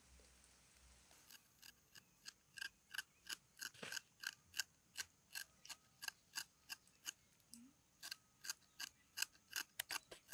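Kitchen knife shaving the peel off a lime, a crisp cut about three times a second, starting about a second in.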